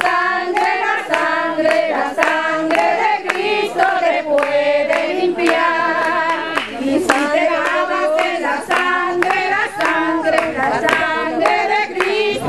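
Group of voices singing a Spanish-language praise chorus together, with steady hand clapping about twice a second keeping the beat.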